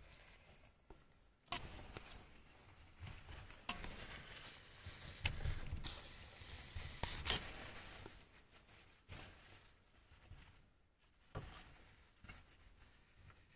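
Degus rustling and scrabbling through dry hay and torn paper nesting material, with sharp crackling clicks now and then among softer rustling.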